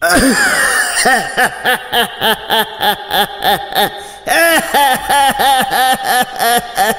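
A harsh, cackling cartoon laugh voiced for a talking crow. A quick run of 'ha-ha' syllables, about four a second, breaks off briefly about four seconds in, then starts again.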